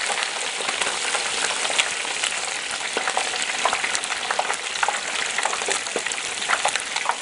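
Hot cooking oil in a turkey-fryer pot sizzling and bubbling hard around a whole turkey being lowered in, with many scattered crackling pops: water from the bird boiling off in the oil.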